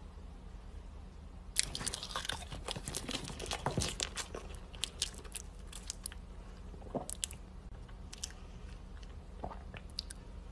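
Quiet close-up sounds of someone biting into and chewing a banana: a dense run of wet chewing clicks begins about one and a half seconds in, then thins to scattered smacks.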